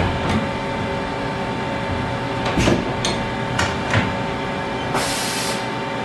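Haas VF-6SS CNC vertical machining center running as its spindle head traverses, giving a steady whine over a mechanical hum. Several short clicks sound through it, and a brief high hiss comes about five seconds in.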